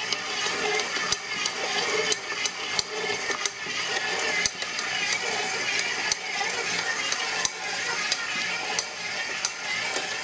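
KitchenAid ProLine 7-quart stand mixer running, with sharp clicks from its gear assembly at irregular spacing, roughly one a second, over the steady motor hum. The clicks are very loud, much louder than the mixing noise, and the owner takes them for a defect in the new mixer's gears.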